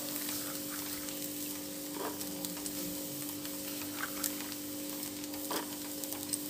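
Gas burner hissing steadily with a low hum under a clay pot of water and chopped vegetables heating up, with a few faint ticks.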